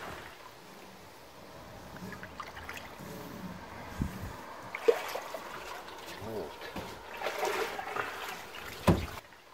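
River water sloshing and trickling around a person wading waist-deep alongside a boat, with a few short knocks.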